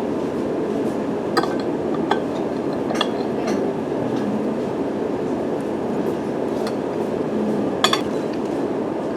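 Steady rumble of a moving train, with a few light clinks and rattles scattered through it.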